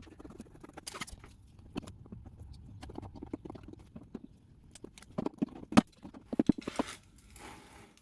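Plastic push-pin clips being worked out of a plastic cover by hand and tool: scattered clicks, knocks and scrapes, with a quick run of sharp knocks about five to six seconds in.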